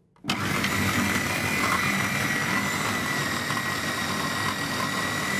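Food processor motor switching on and running steadily with a constant whine, its blade mincing raw chicken breast.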